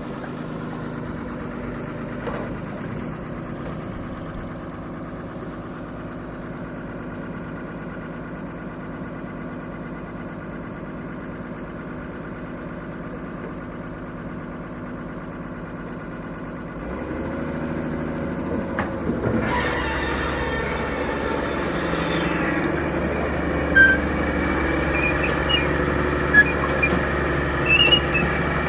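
Heavy diesel machinery of an excavator loading a dump truck, its engines running steadily, then working harder and louder partway through. Sharp clinks and clatter come near the end.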